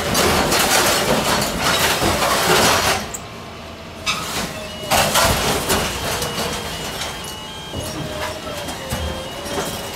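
Truck-mounted dumpster grinder pressing its drum head down into a roll-off dumpster, crushing cardboard and debris with loud crunching for the first three seconds and again about five seconds in. Under it runs the machine's steady, slightly wavering whine.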